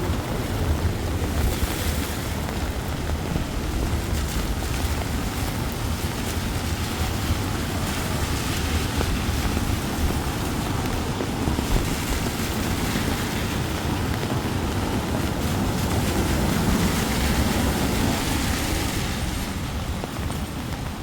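Steady rain noise over a heavy low rumble, swelling slightly near the end.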